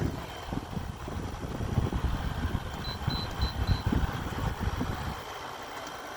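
Room air conditioners running in cool mode, a steady mechanical hum under an uneven low rumble. Four short high beeps come in quick succession about three seconds in.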